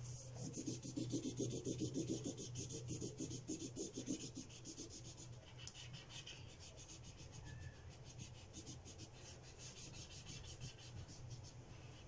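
Felt-tip marker scrubbing back and forth on paper in quick, rapid strokes as an area is coloured in, louder in the first few seconds and lighter after.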